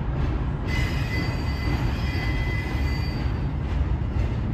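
Double-stack intermodal freight cars rolling slowly over a steel girder bridge: a steady low rumble of wheels on rail, with a high wheel squeal coming in about a second in and dying away near the end.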